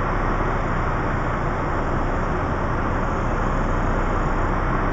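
DAF CF lorry's diesel engine running steadily at low revs, heard from inside the cab as the truck creeps forward while manoeuvring; an even drone with a low hum underneath.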